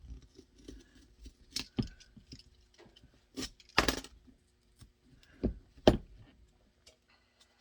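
Handling noise from a workbench: irregular light taps and clatter of tools and materials being picked up and set down, with about five sharper knocks spread through the middle.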